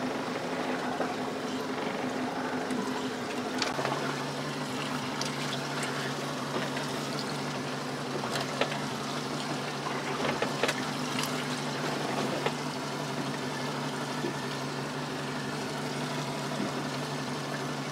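Small fishing boat's motor running steadily, with water washing against the hull; a second, lower hum joins about four seconds in, and there are a few light clicks.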